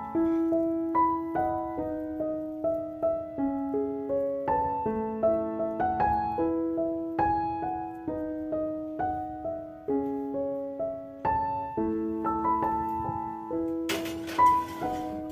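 Solo piano music, notes struck one after another. About a second before the end, a brief scrape and clatter cuts through as a glass baking dish slides onto a wire oven rack.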